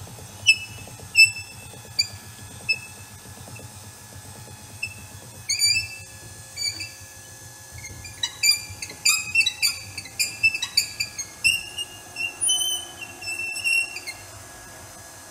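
SeaStar hydraulic steering helm squeaking as the wheel is turned while the system is being bled: a series of short, high squeaks, a few spaced out at first, then coming thick and fast from about eight seconds in, over a low steady hum.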